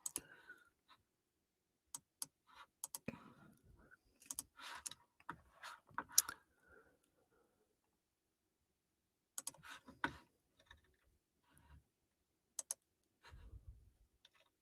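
Scattered faint clicks and taps in small clusters, separated by near-silent gaps, with a soft low thump near the end.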